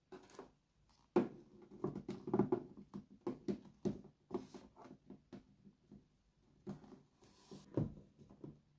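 Handling noise of a plastic baby doll being moved and sat upright on a wooden table: irregular soft taps, knocks and rustles, with a sharper thump about a second in and another near the end.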